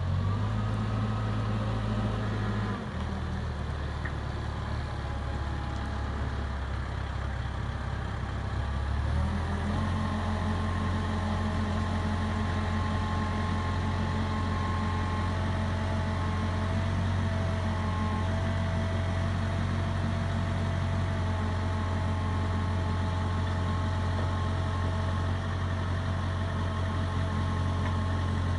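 Diesel engine of a CAT TH460B telehandler running steadily. Its note drops about three seconds in and picks up again around nine seconds, then holds, with a faint steady whine over it.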